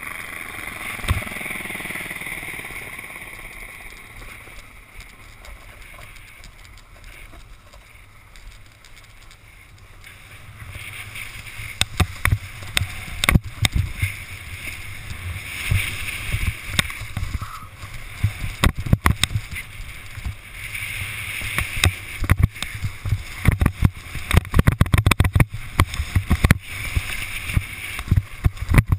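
Snowboard sliding and carving over spring snow, a steady rushing scrape of the base and edges on the snow. From about a third of the way in it turns louder and rougher, with frequent knocks and thumps as the board chatters over uneven snow.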